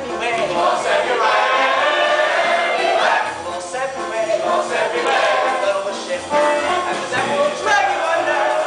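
A male soloist and an ensemble chorus singing an upbeat show tune live over instrumental accompaniment, with bass notes pulsing on the beat.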